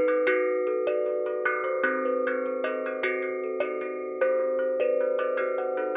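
Steel tongue drum (glucophone) played with the fingertips in short, crisp strokes: a run of struck notes about three a second, each ringing on for a long time so that the notes overlap.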